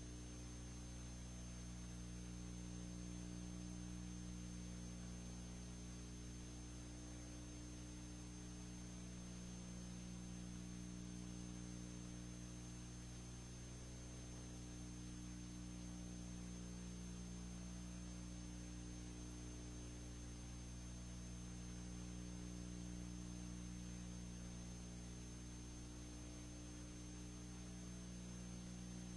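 Steady electrical mains hum with a faint hiss and a thin, steady high whine, with nothing else on the track.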